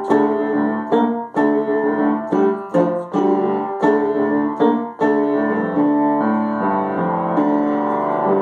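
Piano music: a series of struck notes and chords in a steady pulse, easing into softer held chords from about five seconds in.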